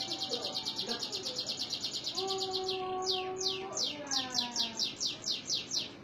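Domestic canary singing: a very fast rolling trill of high notes, then a slower run of falling whistled sweeps that stops near the end.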